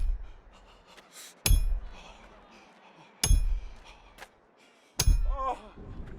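A hammer striking a metal nail four times, about every second and a half to two seconds, each blow sharp and ringing. A short cry follows the last blow, and a low rumble starts near the end.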